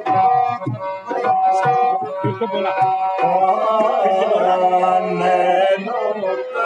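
Harmonium playing a tune in held reed tones, with drum strokes in the first half.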